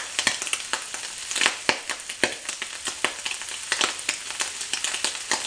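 Diced bacon frying in a fry pan over high heat: a steady sizzle with frequent sharp, irregular pops and crackles.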